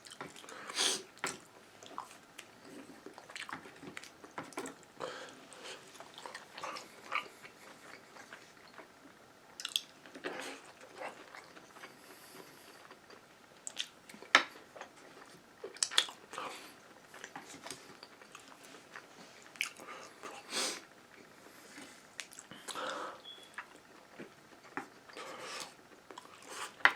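Close-up mouth sounds of a person eating Panda Express food: chewing and biting, with scattered wet clicks and crunches at irregular intervals.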